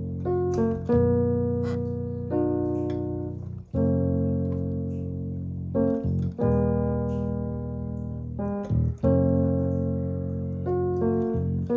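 Background piano music: slow sustained chords, a new one struck about every two and a half seconds and fading before the next, with shorter higher notes in between.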